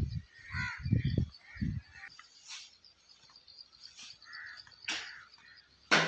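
Crows cawing: a few louder calls in the first two seconds, then several short, fainter ones.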